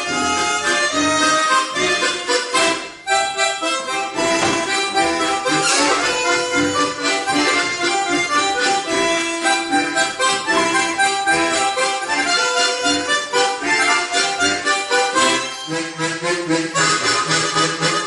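A harmonica ensemble of four players performing a tune together: reedy melody over held chords, one part carried by a long orchestral harmonica. The playing dips briefly about three seconds in, and lower notes join in near the end.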